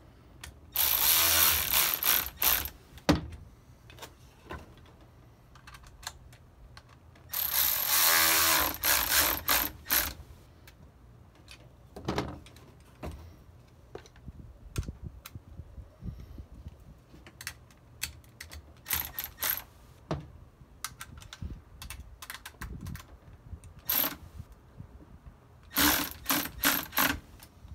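Cordless Milwaukee ratchet running in short bursts, spinning the bolts of an AP Racing two-piece rotor down to snug, not to torque. Between runs come small clicks and taps of the bolts, nuts and washers being handled.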